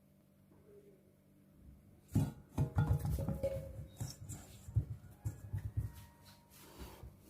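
Knocks and clatter of a bowl being handled, about two seconds in and lasting roughly four seconds, with a few brief ringing tones.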